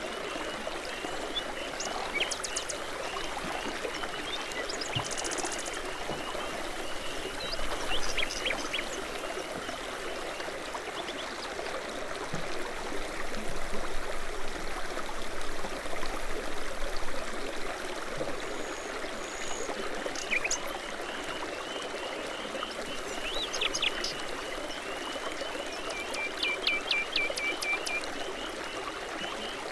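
Babbling brook: a steady wash of running, trickling water, with songbirds chirping and singing over it in scattered short calls and trills, busiest near the start and again near the end.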